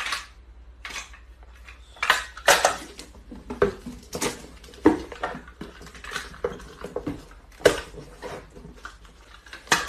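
Packing tape being pulled from a handheld tape dispenser and pressed onto cardboard boxes: a string of short, irregular tearing and rasping sounds with knocks of cardboard, about one every half second to a second.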